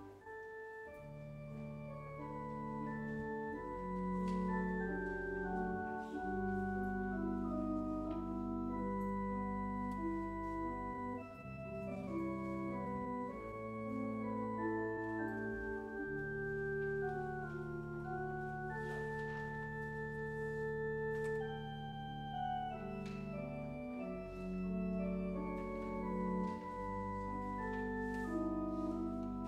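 Church organ playing music: held chords over long, low bass notes.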